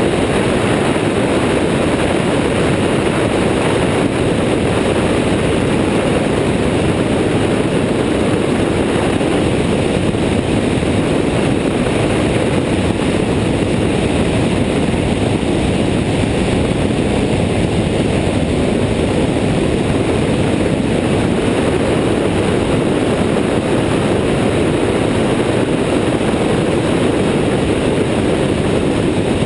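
Airborne XT Tundra ultralight trike in steady cruising flight: its engine and pusher propeller drone under a heavy rush of wind on the wing-mounted camera, at a constant level.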